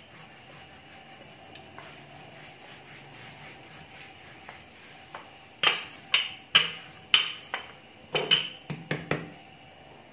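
Wooden rolling pin rolling out a stuffed paratha on a marble slab: quiet at first, then a run of about nine sharp knocks of wood on stone in the second half.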